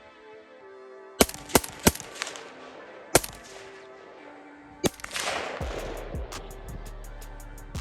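Century Arms RAS47 AK-47 rifle firing 7.62x39 rounds: five single shots at uneven intervals, under background music that picks up a fast, steady beat about two-thirds of the way in.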